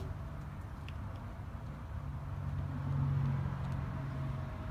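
A low, steady engine hum that grows a little louder two to three seconds in.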